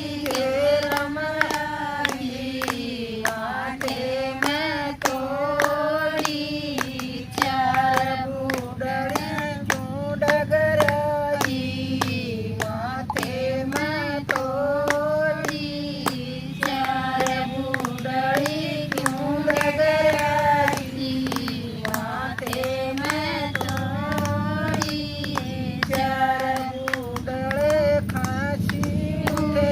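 Female voice singing a Haryanvi folk bhajan, with hand claps keeping a steady beat.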